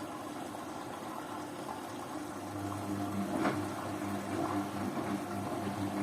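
Beko washing machine running a 50-degree synthetics wash, with water sloshing. About two and a half seconds in, a low motor hum starts up and carries on.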